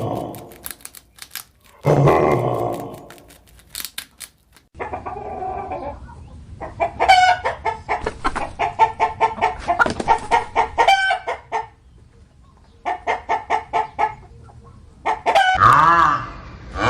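Chickens clucking and cackling in rapid runs of short pitched calls, with a brief deep roar-like burst about two seconds in and a different call with swooping pitch starting near the end.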